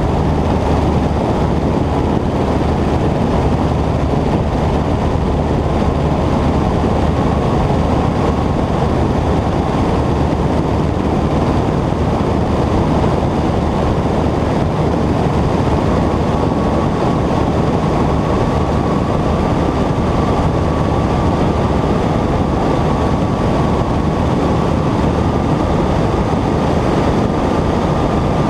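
Cessna 120's air-cooled flat-four engine and propeller droning steadily in flight, with a faint steady whine that creeps slightly higher in pitch partway through.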